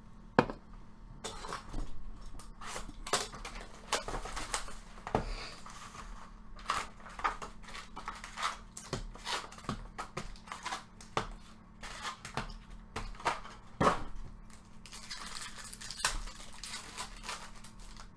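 Baseball trading cards and foil pack wrappers being handled at close range: a continuous run of crinkles, rustles and sharp clicks, with a longer rustle near the end.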